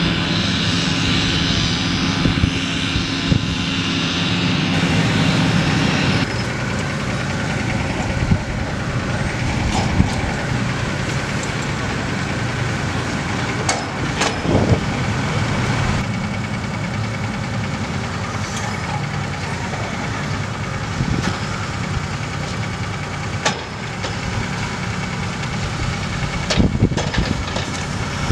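Heavy diesel machinery running steadily: a Kenworth K108E logging truck and a Sumitomo SH300 hydraulic log loader. A few sharp knocks come through now and then as logs are handled.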